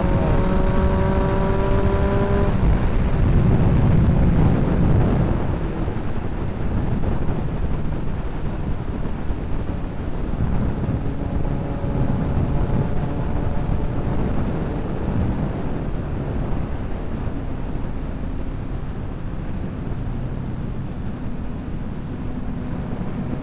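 Motorcycle engine running at highway speed under a constant rush of wind over the microphone. Its pitch rises slightly for the first couple of seconds as it pulls, then the engine drops back under the wind noise, coming through faintly and steadily later on.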